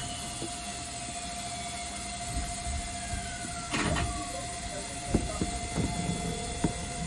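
Cab of a Yoro Railway 7700-series electric train: a steady electrical hum with a high constant tone. About halfway in there is a falling whistle-like tone and a short burst of hiss, then a few sharp clicks.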